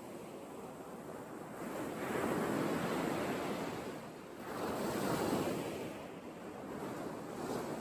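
Surf washing onto the beach, a steady rush that swells louder twice, once about two seconds in and again around the middle.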